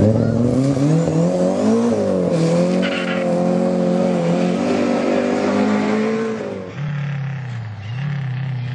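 Ford Escort Mk2 rally car's engine at full throttle as it drives off: the revs climb, dip briefly at a gear change about two seconds in, then hold high. Near the end a cut brings in a second rally car engine, a Lancia Delta, quieter and lower in pitch.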